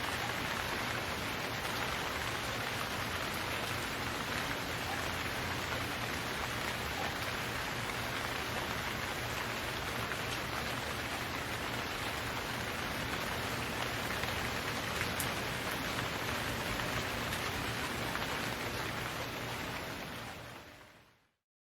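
Steady rain falling, an even wash of hiss and patter, fading out to silence about a second before the end.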